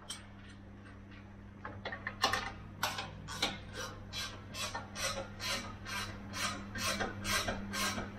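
Hand ratchet wrench worked back and forth to undo an underbody bolt, its pawl giving a short rasping click on each stroke, about two strokes a second from about two seconds in. A steady low hum runs underneath.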